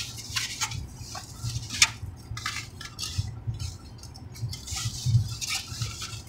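Takeout food containers and wrappings being handled: irregular rustling, crinkling and light clicking of foam and paper packaging.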